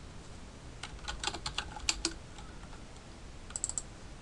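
Computer keyboard typing: a quick run of keystrokes about a second in, entering a login password, then a short burst of sharper clicks near the end.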